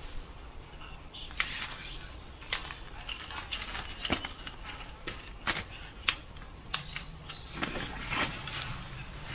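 Short sharp clicks and clacks of a Trekology folding camping chair's metal frame poles being handled and fitted together, about eight separate knocks spread roughly a second apart, with some rustling near the end.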